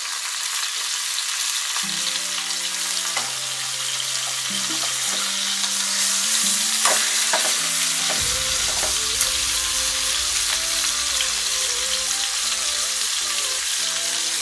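Chicken thigh and drumstick pieces sizzling as they shallow-fry in hot oil in a pan. A few short clicks sound as a spatula turns the pieces. Soft background music with held notes runs underneath from about two seconds in.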